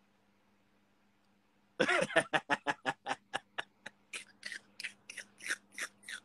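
A man laughing: a quick run of short 'ha' bursts, about four or five a second, starting about two seconds in and growing quieter toward the end.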